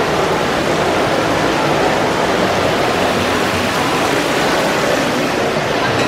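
Fountain water falling and splashing steadily into its stone basin, a constant loud rush.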